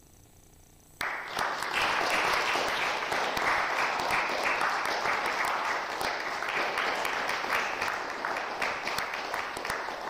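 A small audience applauding. The clapping starts suddenly about a second in, carries on steadily and eases a little near the end.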